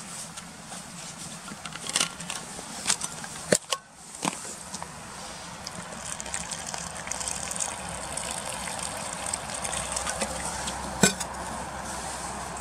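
A few sharp clicks and knocks, then, from about five seconds in, water pouring in a steady stream from a bottle into a steel bowl of flour. A single sharp knock near the end.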